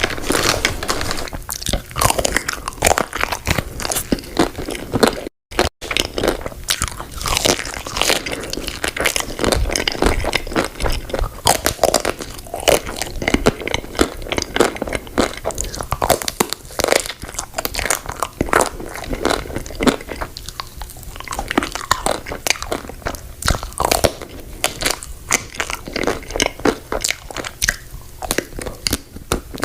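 Close-miked crunching and chewing of chocolate-coated candy and ice cream bars: many crisp, irregular bites and chews, with one short break a little past five seconds in.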